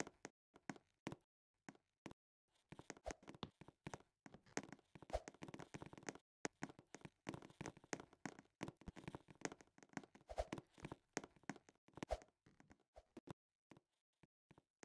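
Faint, irregular taps and knocks, coming thickest from about three seconds in until near the end.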